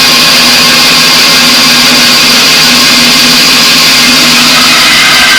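A woodworking power tool running steadily and loudly, with a higher whine coming in near the end.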